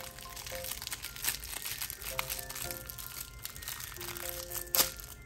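Clear plastic wrapper crinkling as it is pulled open by hand, with a sharp crack near the end. Soft background music with held notes plays underneath.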